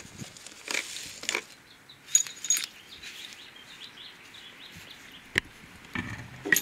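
Plastic packaging bags crinkling and rustling in irregular bursts as items are shifted about inside a cardboard box, with a sharp click a little past five seconds and more handling clatter near the end.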